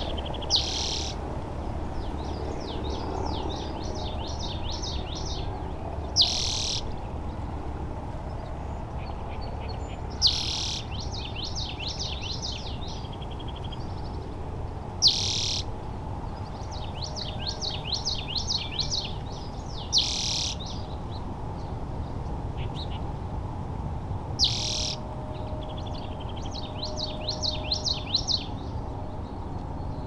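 Spotted towhee calling: a short, loud call about every four to five seconds, six in all. Between the calls, other birds sing fainter trills of rapidly repeated notes over a steady low background rumble.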